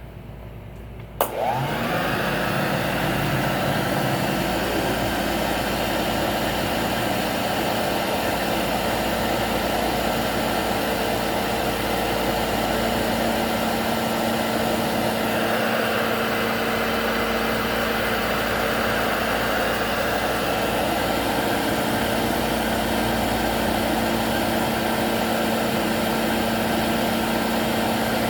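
Hoover Junior 1348 direct-air upright vacuum cleaner switched on with a click about a second in, its motor and fan spinning up with a rising whine and then running steadily. The owner isn't sure it is running right, even with its front ball bearing and rear sleeve bearing freshly greased.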